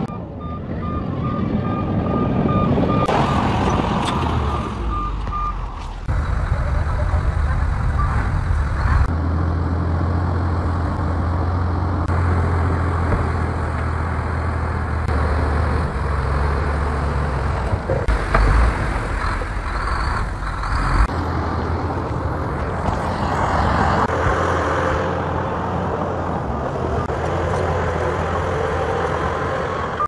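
Shantui crawler bulldozer's diesel engine running under load as it pushes dirt, a steady low drone. For the first five seconds or so a reversing alarm beeps rapidly over it.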